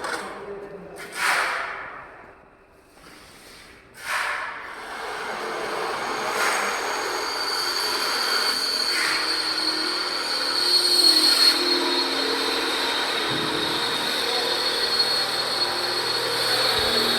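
Plastic recycling washing line running: a steady, dense machine noise with a constant high whine, which sets in after a few loud knocks in the first four seconds.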